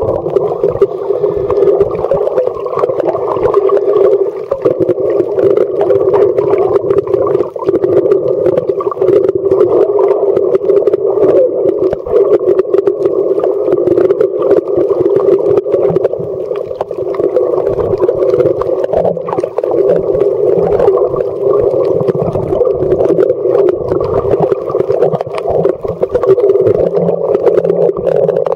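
Muffled underwater noise picked up by a camera's microphone held below the surface: a steady, dense rumble with scattered crackling clicks throughout.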